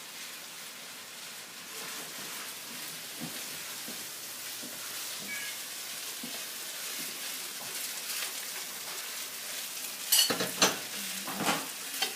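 Stir-fry of vegetables, brown rice and pork sizzling in a hot oiled pan as it is stirred, a steady hiss with small scrapes. Near the end the utensil knocks and scrapes loudly against the pan several times.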